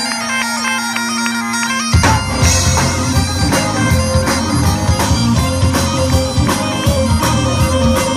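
Bagpipes playing a tune over a steady drone; about two seconds in, drums and a full band come in with a steady beat.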